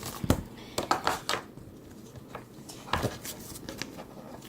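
Black slime being pressed and flattened by hand, giving a few short, sharp clicks and taps: one about a third of a second in, a cluster about a second in, and another about three seconds in.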